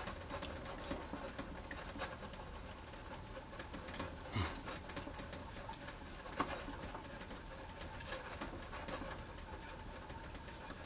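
Whisk stirring barbecue sauce in a saucepan: a soft, steady swishing with a few light taps of the whisk against the pan.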